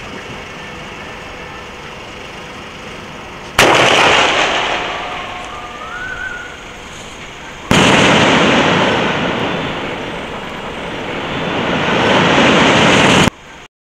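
Sky shot firework going off: a sudden loud blast about three and a half seconds in, with a long rush of noise fading after it and a short rising whistle. A second loud blast follows about four seconds later, its noise holding for about five seconds before it cuts off abruptly.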